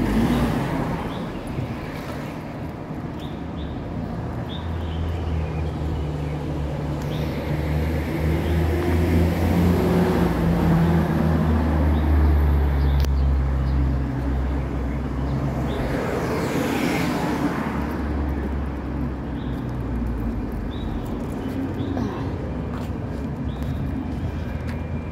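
Street traffic: a motor vehicle's low engine rumble builds over several seconds, is loudest near the middle, then fades away. Another vehicle passes with a brief whoosh about two-thirds of the way through.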